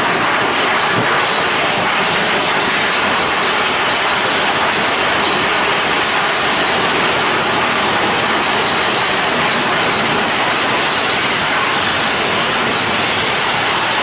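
Big Thunder Mountain Railroad mine-train roller coaster rolling through a cave, with a steady loud rattle and rumble of its wheels on the track.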